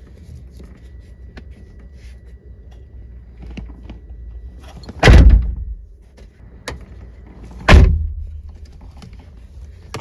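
Nissan 350Z car door, its inner trim panel removed, slammed shut twice, about two and a half seconds apart, each a loud thunk.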